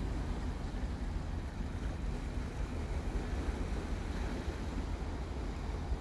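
Wind rumbling on the microphone over the steady wash of the sea against the shore rocks.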